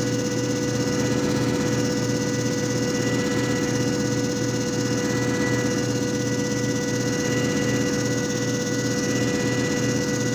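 JFJ Easy Pro disc repair machine running, its motor giving a steady hum with a thin high tone above it.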